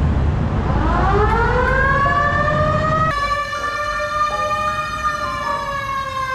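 A siren winding up in pitch over about two seconds, then holding a steady wail that sags slowly near the end, over a low road rumble in the first half.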